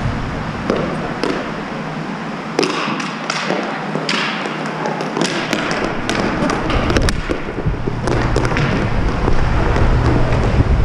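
Roller hockey play: a run of sharp clacks and knocks from sticks and puck hitting each other and the rink floor, over the steady rush of inline skate wheels.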